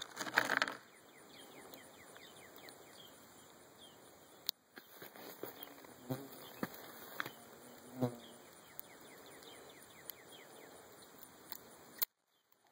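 Scattered sharp clicks and handling noise from a Taurus Tracker 990 .22 revolver being reloaded, the loudest a rustling burst in the first second and a sharp click near the end. Insects chirp steadily in the background.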